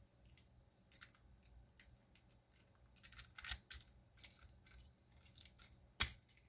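Small metal clicks and scrapes of warded bypass tools being worked in a warded lock's keyway, with one sharp loud click about six seconds in.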